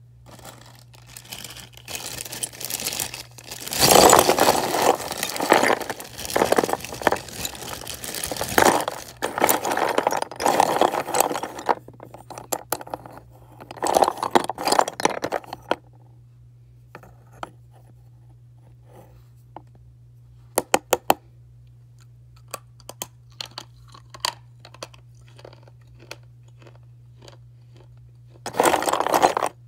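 Soft slate pencils crunching and scraping in dense, irregular bursts for about the first sixteen seconds. Then come scattered sharp clicks, with a quick run of them around twenty-one seconds, and a short loud burst of crunching near the end. A faint steady low hum runs underneath.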